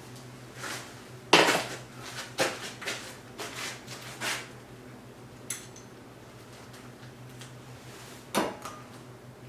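Irregular metal-on-metal clanks and clinks, about nine in all, the loudest about a second and a half in and another strong one near the end, over a steady low hum.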